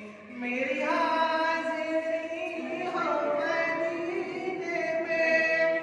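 Unaccompanied devotional chanting of an Urdu salam in drawn-out, wavering sung notes, with no instruments.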